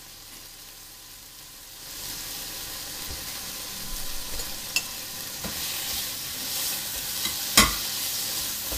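Bacon sizzling in a dry non-stick frying pan, the sizzle growing louder about two seconds in. Near the end a spatula stirs the bacon, with a few clicks and one sharp knock against the pan.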